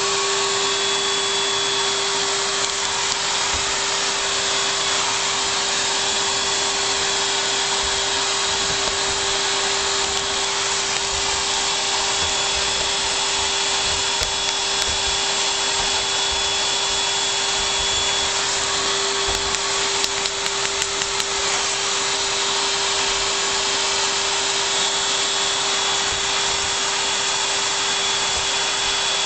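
Vacuum cleaner running steadily with a constant motor whine, with a few brief knocks and clicks about halfway through and again about two-thirds of the way through.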